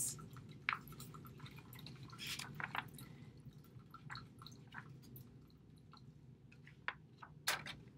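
Faint, scattered small clicks and ticks, irregularly spaced, over a low steady hum of room tone.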